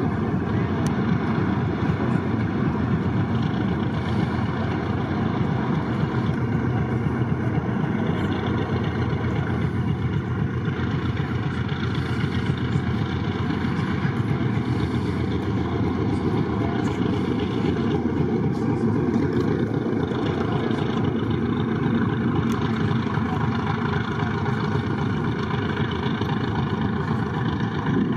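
Boeing B-29 Superfortress's four Wright R-3350 radial piston engines running steadily at taxi power, a dense, even rumble with no let-up.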